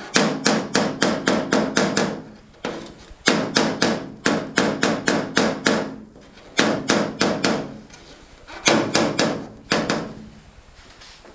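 Body hammer tapping dents out of an aluminium canoe hull: four quick runs of light strikes, about five a second, each with a short metallic ring from the hull.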